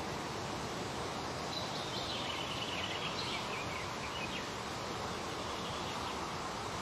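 Steady outdoor background hiss, with a faint series of high chirps from about one and a half to four and a half seconds in.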